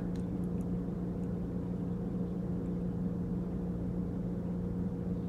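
Steady low mechanical hum of a shop's background, with one constant low tone and a few faint ticks near the start.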